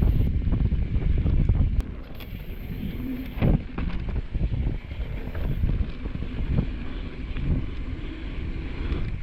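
Wind rushing over the microphone as a bike rolls down a dry dirt trail, with tyre noise and scattered knocks and rattles from the bike over the rough ground. Louder for the first two seconds, then easing off.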